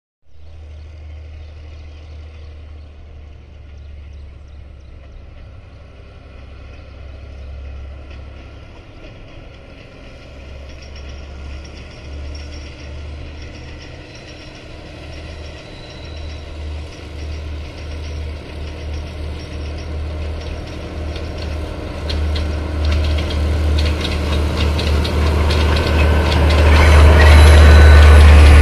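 Diesel locomotive hauling a passenger train, its low engine rumble growing steadily louder as it approaches, loudest near the end as it comes alongside.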